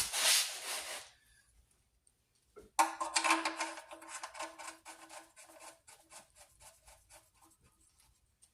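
Ratchet wrench clicking fast as the oil drain plug is run back in, the clicks slowing and fading away over a few seconds. A short rasping rush comes first, before a brief pause.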